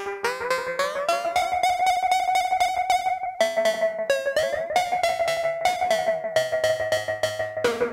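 Modular synthesizer oscillators cross-modulating each other through a Doepfer A-138m matrix mixer in bipolar mode, giving a buzzy pitched tone with fast, even pulsing. The pitch glides upward over the first second or so, then jumps between a few held notes as the mix level changes.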